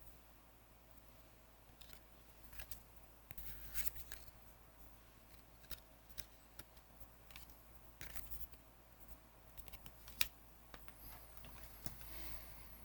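Magic: The Gathering trading cards being handled and flipped through, with short, faint clicks and slides of card against card, and a longer rustle near the end.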